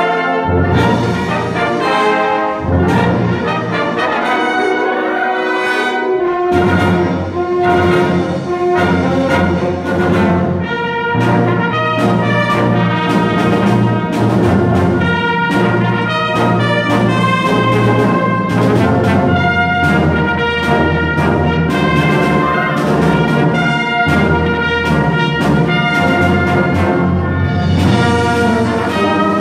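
Concert wind band playing: clarinets, flutes, saxophones and brass, with tubas on the bass line. The bass drops out for a few seconds near the start, then the full band comes back in.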